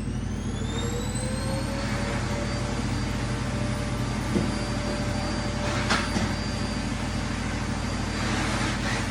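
Vacuum cleaner motor running, its whine rising to full speed over the first second or so and then holding steady. A couple of brief knocks about four and six seconds in.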